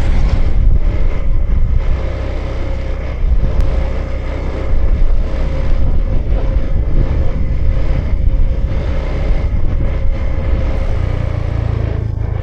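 A Honda Vision scooter's small single-cylinder engine running at steady riding speed, with a faint steady whine above a heavy, uneven rumble of wind and road noise on the camera microphone.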